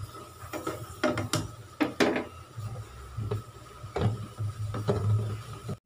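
A cooking utensil knocking and scraping against a frying pan as pork tocino is stirred while it simmers in water, several separate clatters over a steady low hum. The sound cuts off abruptly at the very end.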